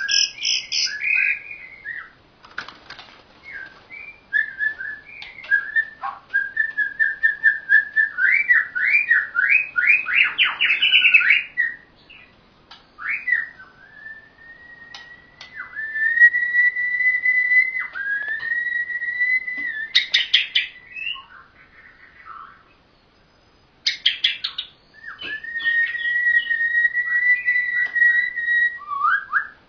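Asian pied starling and white-rumped shama singing: fast trilled and rattled whistle phrases, then long level whistled notes, with a short lull about two-thirds of the way through.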